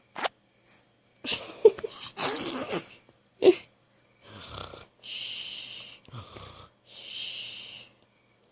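Pretend snoring: a run of about seven forced, wheezy breaths with a short squeak in the middle. The later breaths are long and hissing, each lasting up to a second.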